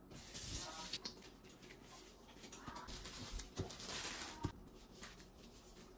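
Plastic cling wrap crinkling and rustling as gloved hands lift it off dough balls, with a couple of light knocks near the middle.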